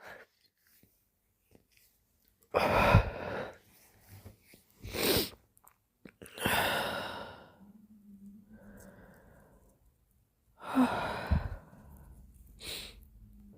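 A person sneezing several times, wet-sounding, in separate loud bursts with breaths between them. A soft, low moan comes after the second sneeze.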